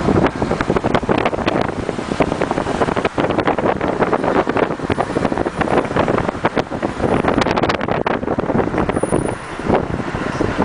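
Wind buffeting and crackling on the microphone from a moving vehicle, over steady road noise.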